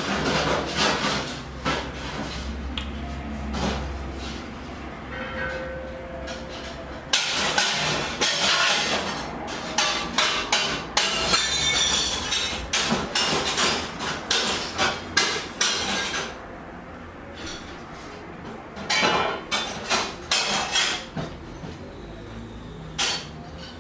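Irregular knocks and bangs, like hammering and clattering, from work going on elsewhere in the house. They come thickly from about seven seconds in, over a low hum at the start.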